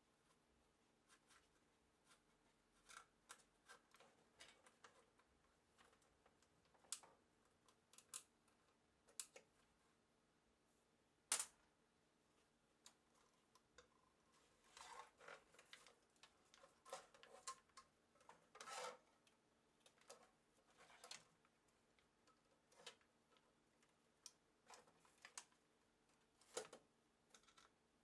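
Faint, irregular clicks and short scrapes of hand tools and small metal and plastic parts handled while an electronic instrument is taken apart. One sharp click about eleven seconds in is the loudest, and the sounds come thicker in the middle of the stretch.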